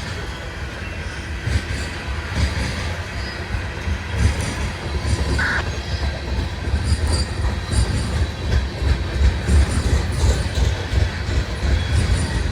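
Freight cars of a CSX train rolling past: a steady low rumble of steel wheels with irregular clacks over the rail joints, and one brief high wheel squeal about five and a half seconds in.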